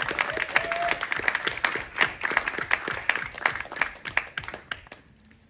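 Small audience applauding, the clapping thinning out and dying away near the end.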